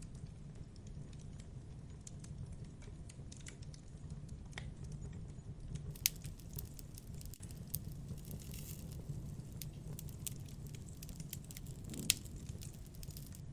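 Campfire crackling: scattered pops and snaps over a low steady rumble, with two sharper, louder pops about six seconds in and near the end.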